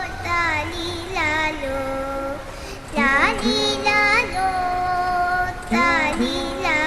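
Music with a high singing voice: a melody of held notes joined by quick slides up and down in pitch.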